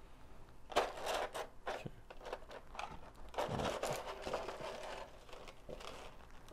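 Clear plastic blister packaging of an action-figure box crinkling and clicking as it is handled, in a run of irregular rustles and sharp clicks.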